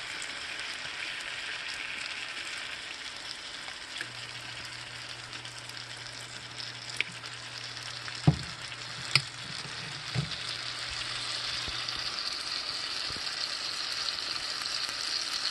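T-bone steaks sizzling in a hot cast iron skillet: a steady frying hiss that grows a little stronger near the end. A few light knocks sound about halfway through.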